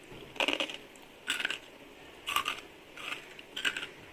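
Crisp, freshly fried roasted-gram ghee murukku crunching: five short, sharp crackly crunches about a second apart, the sound of a well-fried, brittle murukku.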